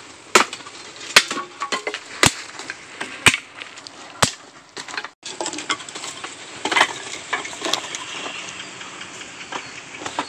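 Sharp knocks and cracks of dry firewood being prepared, about one a second over the first five seconds, then lighter scattered knocks and clicks.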